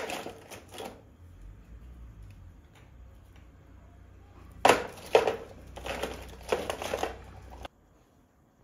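Painting supplies clattering and rustling as they are handled on a work table, in a short burst at the start and a longer spell from about halfway, cut off abruptly near the end.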